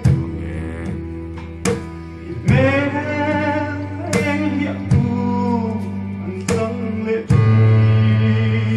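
A man singing a slow song through a microphone and PA, holding long notes over amplified backing music. The backing has sustained low notes and occasional sharp percussive hits.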